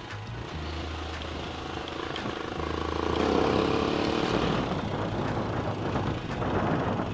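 AJP PR7's single-cylinder engine running under way on a gravel track, with wheel and wind noise over it; it grows louder about three seconds in.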